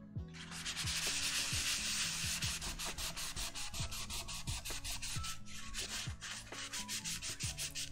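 A paper towel scrubbed rapidly back and forth with Brasso over the metal underside of a keyboard case, making a rubbing hiss in many short strokes. The stain is not coming out.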